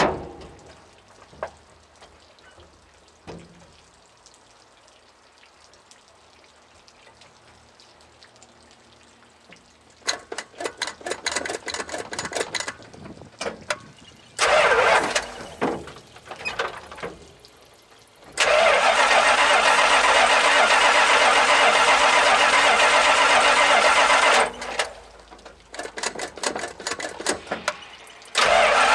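Cold start of a 1982 Dodge Power Ram's 360 V8 with a Carter Thermo-Quad four-barrel carburetor, after it has sat for about a month. A thump comes at the start and the next ten seconds are quiet. Then the starter cranks in bursts, the engine catches and runs loudly for about six seconds, falters, is cranked again, and catches near the end.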